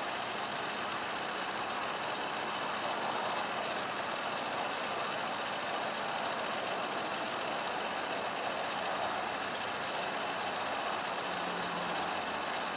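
Narrowboat diesel engine running steadily.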